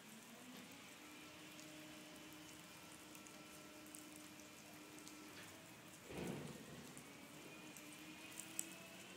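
Faint light rain pattering on wet pavement, under the steady hum of a distant heavy vehicle's engine. About six seconds in there is a brief, louder low rumble.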